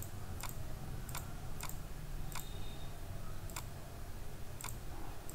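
Computer mouse clicking about seven times at uneven intervals over a low steady hum.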